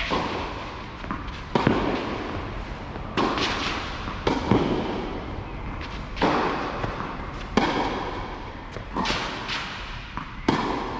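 Tennis rally on a clay court: a tennis ball struck by rackets and bouncing, a sharp crack about every second and a half. Each hit echoes in the covered hall.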